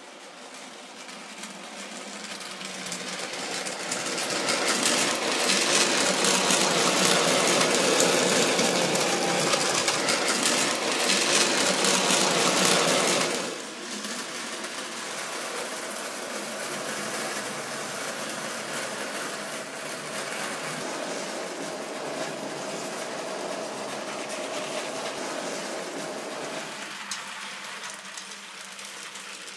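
N gauge model train running on the track: a small electric motor whirring with the wheels rattling over the rails. It builds up over the first few seconds, stays loud until it drops suddenly about 13 seconds in, then carries on steadier and quieter.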